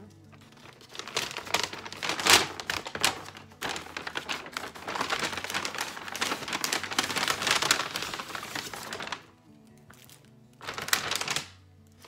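Brown paper takeout bag rustling and crinkling as it is opened and handled, in a long stretch of crackling, then a pause and a second short rustle near the end.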